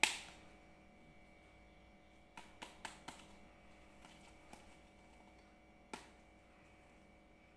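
Hard plastic Dairy Milk Lickables cups clicking as they are handled and knocked together: a sharp click at the start, a quick run of four clicks about two and a half seconds in, then single clicks, over a faint steady hum.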